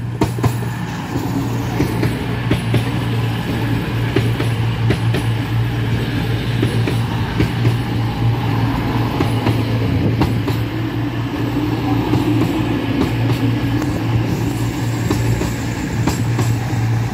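CrossCountry Voyager diesel multiple unit moving past close alongside the platform: a steady low drone from its underfloor diesel engines, with wheels clicking over the rails.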